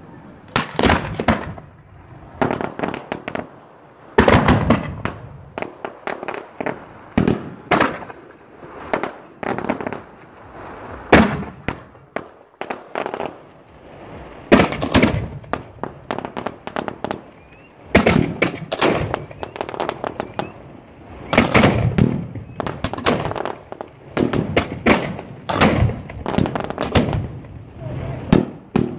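Fireworks going off at close range: a rapid, irregular series of sharp bangs from shells launching and bursting, coming in clusters with short gaps between them.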